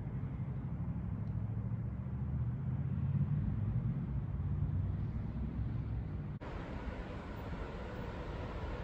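A low, steady vehicle rumble that swells around the middle; about six and a half seconds in it changes abruptly to a wider, hissier noise, as a freight train approaches far down the line.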